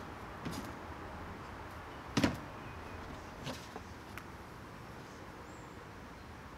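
Handling knocks from a corded circular saw being handled and set down on a vinyl lattice panel on sawhorses, with a sharp knock about two seconds in and a few lighter clicks. The saw is not running.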